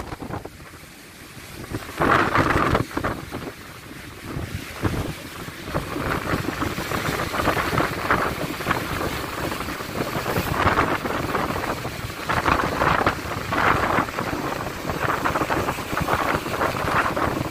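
Rough sea breaking against a stone sea wall and rocks, with waves crashing and washing back in repeated surges. Wind buffets the microphone throughout.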